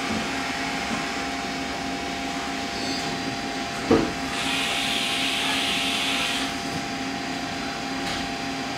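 A steady mechanical hum in the workshop, with a single sharp metallic click about four seconds in as a wrench threads the damper's shaft assembly into the shock body, then a soft hiss for about two seconds.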